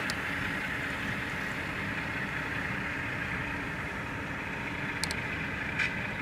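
Model diesel locomotives, an RS11 and an RSD-4, running with Tsunami sound decoders: a steady recorded diesel engine sound from the small on-board speakers, mixed with the wheels rolling on the track. A few faint clicks come near the end.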